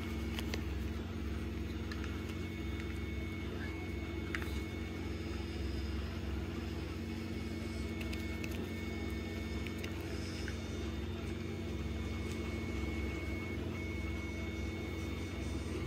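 A steady low machine hum, with a few faint clicks and taps of a wooden stir stick in a cup as two-part silicone is mixed.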